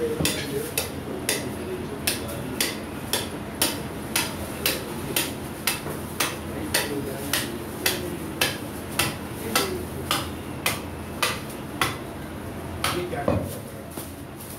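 Butcher's cleaver chopping mutton in a steady rhythm, about two strokes a second, stopping shortly before the end.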